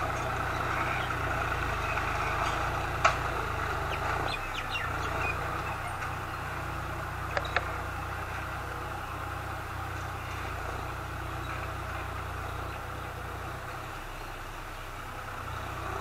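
A tractor engine runs steadily while ploughing, growing slightly fainter. There is a sharp click about three seconds in, and a quick pair of clicks a few seconds later.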